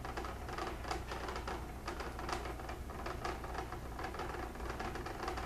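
Pot of boiling water on an electric hot plate rattling with a fast, irregular clicking as it boils hard, over a low steady hum; the burner is set too high.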